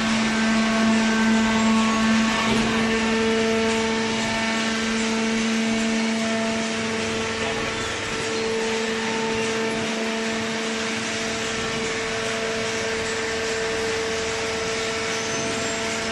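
Hydraulic cardboard baler running: a steady mechanical hum of pump and motor, holding the same pitch throughout, over a hiss. A higher tone in the hum grows stronger about three seconds in.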